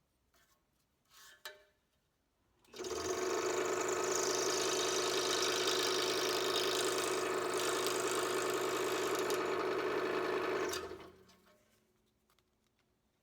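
A scroll saw switched on and running steadily for about eight seconds, its reciprocating blade cutting thin Baltic birch plywood, then switched off and winding down. The cut trims a slot that was still too tight for the mating piece.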